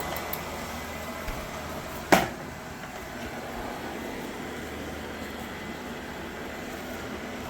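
Robot vacuum sweeper running with a steady whir, with one sharp knock about two seconds in.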